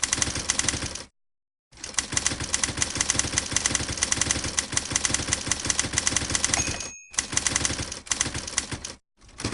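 Manual typewriter being typed on quickly: a rapid, irregular clatter of keystrokes, cut off abruptly by silent gaps. A brief ringing tone sounds about two-thirds of the way through.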